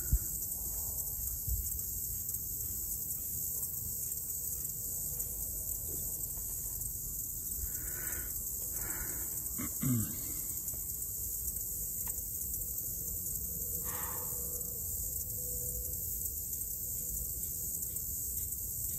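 A steady, high-pitched insect chorus, with a short low sound falling in pitch about ten seconds in.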